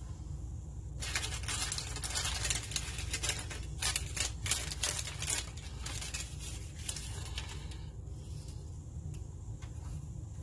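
Crinkling and crackling of grissini breadsticks' packaging as the breadsticks are taken out and handled, with a run of sharp clicks near the middle. It dies away about two thirds of the way through, leaving a low steady hum.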